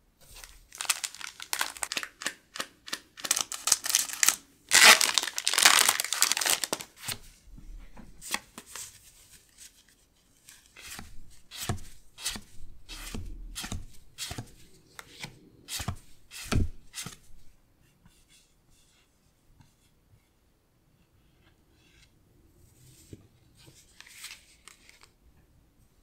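Foil Pokémon booster pack wrapper crinkling and tearing open, loudest about five seconds in. Then a run of short, sharp card clicks and slides as the cards inside are handled, with faint rustling near the end.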